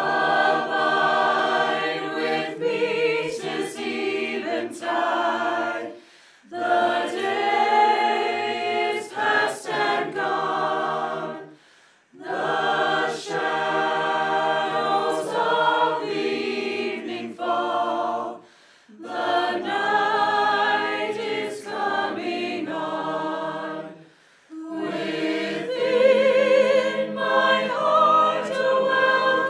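Small mixed choir of men and women singing a hymn a cappella, in phrases of about five to six seconds with short pauses between them.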